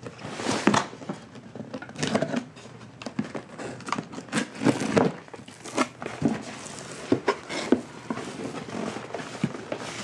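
Corrugated cardboard shipping case being handled and opened by hand: irregular scraping, rustling and crinkling as the box is shifted on a wooden table and its sealed top flaps are pulled apart.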